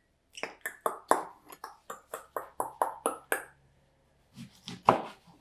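A quick run of light knocks and clinks from kitchen utensils, about four to five a second for roughly three seconds, then a pause and a louder knock near the end.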